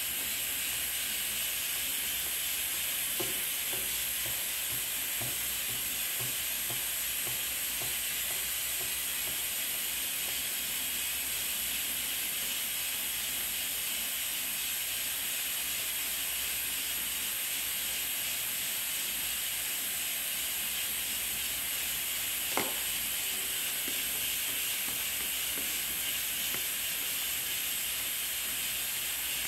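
Steady, even hiss, with one sharp click a little over 22 seconds in.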